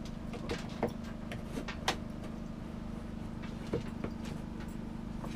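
Light clicks and scrapes of a wire coat hanger being poked around inside a small drilled hole in an RV ceiling, feeling for studs and wiring, a few sharp ticks about a second apart over a steady low hum.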